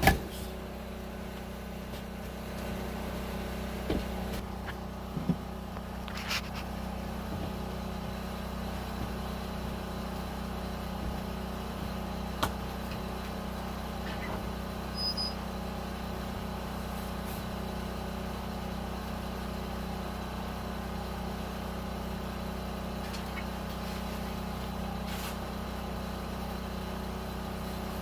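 Steady low mechanical hum, like a small engine or motor running, with a few sharp knocks in the first half.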